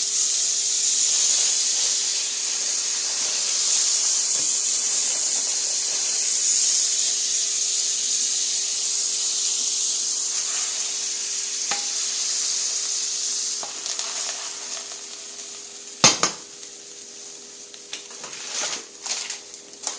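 Butter sizzling in a hot frying pan under a grilled bologna and cheese sandwich, a steady hiss that fades away about fourteen seconds in. A sharp knock of a pan or utensil follows about two seconds later, with a few lighter clinks near the end.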